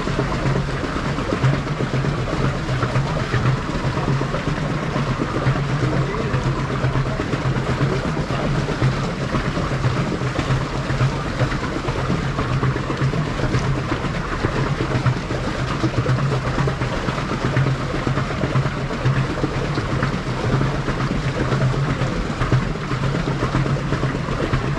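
Small boat under way on the water: a steady low hum with constant water and rushing noise.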